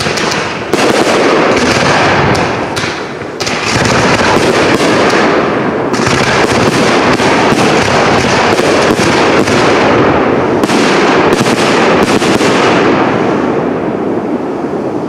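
Aerial firework shells bursting in a dense barrage: many overlapping bangs in quick succession, with crackling, loud throughout.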